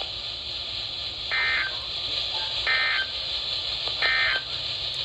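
NOAA Weather Radio EAS/SAME end-of-message data bursts: three short, identical bursts of harsh two-tone digital squawking about 1.3 s apart, over steady radio hiss. They signal the end of the weekly test message.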